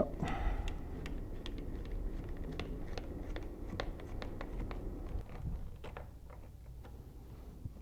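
Faint, irregular small clicks and scraping of metal hardware being handled and tightened as a collar is clamped around a drain pipe.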